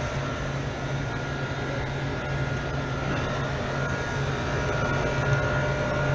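Freezer's refrigeration condensing unit running, its compressor and condenser fans making a steady low hum with a faint steady high whine over it.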